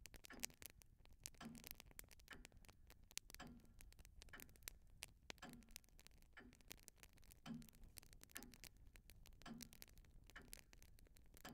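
Faint clock ticking: one tick about every second, alternating stronger and weaker in a tick-tock, over a scatter of small crackles.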